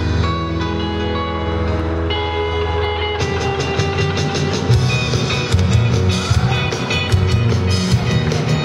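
Student rock band playing live through amplifiers: electric guitars and keyboard hold chords over electric bass, and about three seconds in sharp drum and cymbal hits join in a steady beat.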